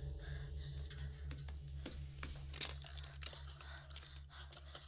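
Horror-film sound design: a low drone pulsing about four or five times a second, with scattered faint clicks and crackles over it.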